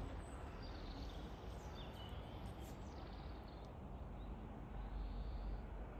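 Faint outdoor background noise, a low steady rumble and hiss, with a few faint, brief bird chirps scattered through it.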